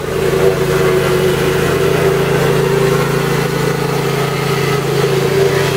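An engine running steadily at constant speed, an even hum that holds its pitch without changing.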